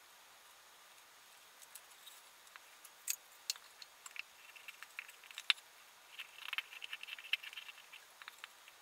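Knife cutting a wooden spoon blank braced against a wooden bib: faint, scattered clicks and short scraping strokes, busiest in the second half.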